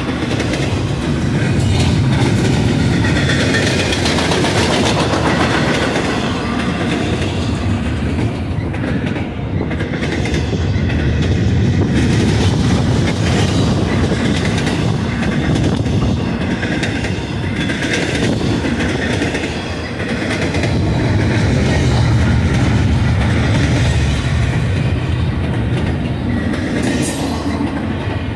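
Double-stack intermodal train's well cars rolling past close by: a steady rumble of steel wheels on rail with a running clickety-clack, swelling and easing slightly as the cars go by.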